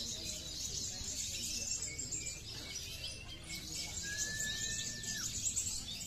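Many caged kolibri (sunbirds) twittering and chirping rapidly at high pitch, all at once. About four seconds in there is a single long, level whistle that drops off at its end.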